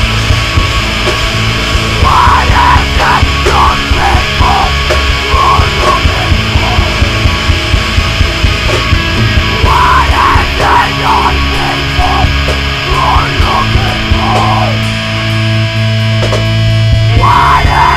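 Metalcore band playing at full tilt: distorted electric guitars, bass and drums, mastered very hot so the whole mix is loud and dense.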